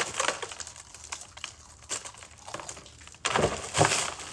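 Crisp matzah crackers being bitten, snapped and chewed, a run of dry crunches and cracks. About three seconds in comes a louder stretch of rustling and crunching as the plastic-wrapped pack of matzah is handled.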